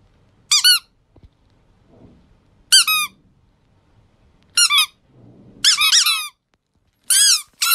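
Squeaky toy giving high, chirping squeaks in six short bursts spaced one to two seconds apart. Each burst is a quick run of rising-and-falling peeps.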